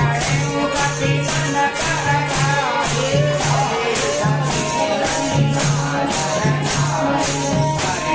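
Devotional kirtan music: singing over a steady beat of tambourine-like jingles, about two to three strokes a second.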